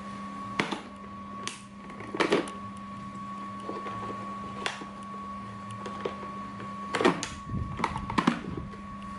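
Cardboard box and its packed contents being handled and unpacked: scattered rustles, taps and knocks, a few seconds apart, over a steady background hum.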